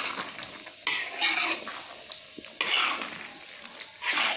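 A metal spatula scraping and stirring thick beef rendang in a steel wok, in three long scraping strokes about a second and a half apart.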